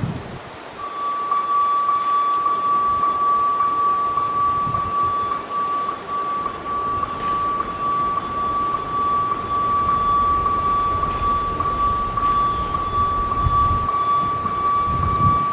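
Electronic level crossing warning alarm starting about a second in: a steady high tone with a repeating beat about three times a second, under low traffic rumble.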